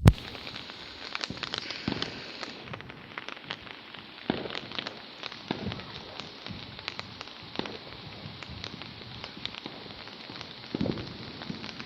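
Rain pattering on a nearby surface: a steady hiss dotted with many small drop ticks. A sharp click sounds at the very start, and a few dull thumps come about four seconds in, at five and a half seconds, and near the end.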